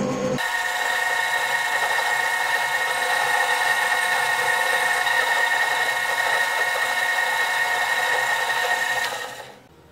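Variable-speed mini lathe running, with a steady whine at several pitches, while its cutting tool turns down a plastic pulley on the spinning shaft. The sound cuts in abruptly at the start and drops away sharply near the end.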